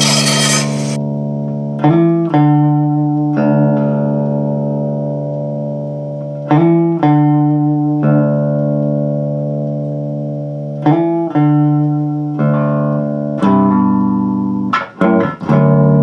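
Music played on a cigar box bass guitar: plucked notes, each left to ring and fade before the next, about a dozen in all. A burst of hiss comes in the first second.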